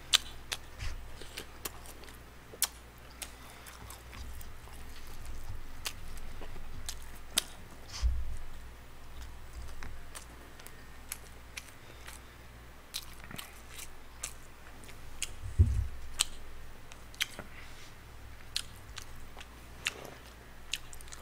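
A person chewing and biting tteokbokki (Korean rice cakes) and other food close to the microphone, with many short crisp clicks and crunches. There are two dull thumps, at about 8 seconds and about 15 seconds in.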